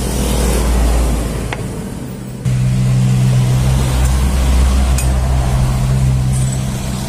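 An engine running steadily with a low, even hum. It jumps louder about two and a half seconds in, with a faint click or two on top.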